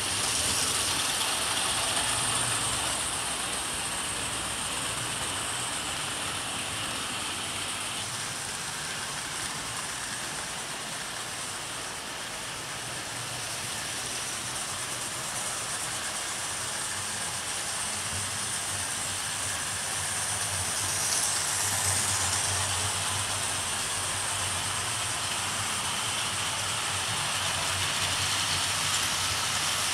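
00 gauge model trains, among them a Bachmann V2, running on the track: the steady whir of small electric motors with the rumble of wheels on the rails, swelling a little about twenty-one seconds in.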